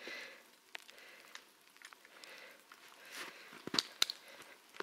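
Quiet footsteps and rustling of people walking, with a few sharp clicks or snaps, the loudest a quick cluster between three and four seconds in.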